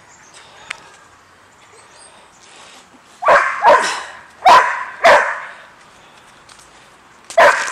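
Dog barking: five short, loud barks, four in quick succession in the middle and one more near the end.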